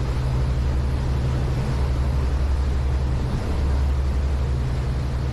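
Steady low drone of the Pershing GTX116's three MAN V12 diesel engines running at low revs as the yacht gets under way on its two side waterjets, with an even hiss above the hum.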